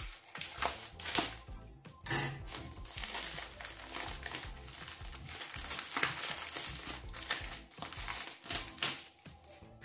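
Parcel packaging crinkling and rustling in irregular crackles as it is handled and opened by hand.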